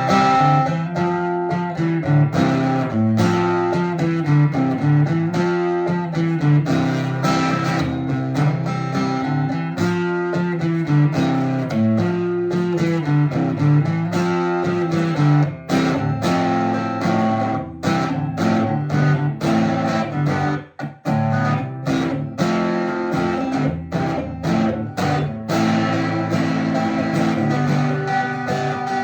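Steel-string acoustic guitar fitted with an electric guitar pickup, played through the pickup. A repeating picked figure of low notes with notes above gives way, about halfway through, to sharper struck chords.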